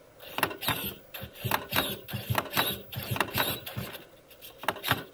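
RC crawler's 9imod 60 kg steering servo working in short irregular bursts, about three a second, as the front wheels are turned hard against a rock under light throttle, with the tyres and chassis clicking and scraping on the stone as the vehicle shifts.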